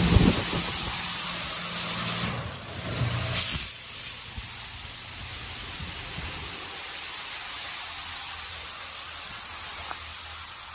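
High-pressure water spraying from the nozzle arch of a Mark VII SoftTouch XT in-bay automatic car wash, a steady hiss of spray and mist. A low machine hum underneath fades out about three and a half seconds in.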